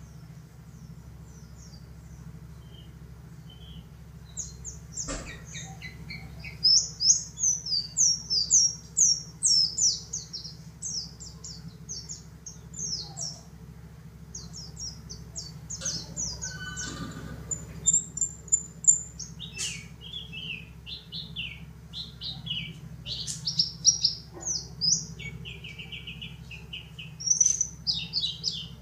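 Pleci dakun (yellow-breasted white-eye) singing: quick, high-pitched twittering phrases in runs, starting about five seconds in, over a steady low hum. A sharp click about five seconds in.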